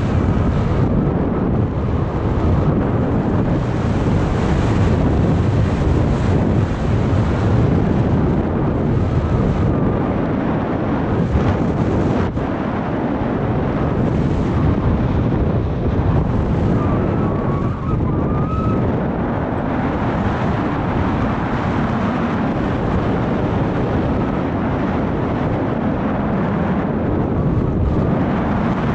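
Steady, loud rush of airflow buffeting the camera's microphone on a paraglider in flight.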